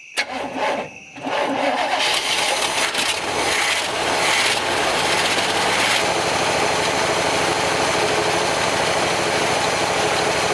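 The 1965 Chevy C10 pickup's engine cranks briefly, catches about a second in, and keeps running. It runs unevenly for the first few seconds, then settles into a steadier run.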